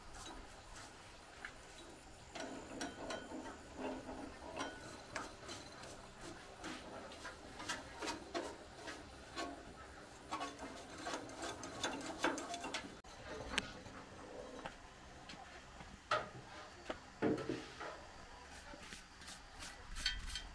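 Hand tools scraping and rubbing along the metal drum of an old rice grain separator as it is cleaned, with irregular clicks and knocks of metal tools on metal. The scraping is densest through the first two-thirds, and a few sharper knocks stand out later on.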